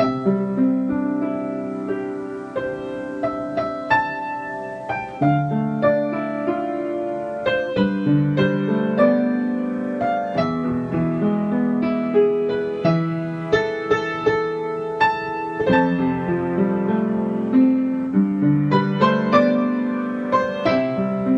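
Piano music: a gentle solo piece of held chords and single notes struck one after another at an unhurried pace.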